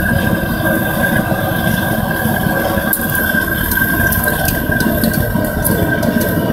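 Bucket-style metal-melting furnace running: a steady rushing roar with a constant high whine over it. A few faint ticks and scrapes come from a steel rod worked inside the crucible.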